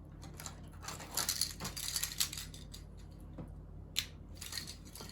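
Faint clicking and rustling of small objects being handled, with a cluster of scrapes about a second in and one sharp click about four seconds in, over a low steady hum.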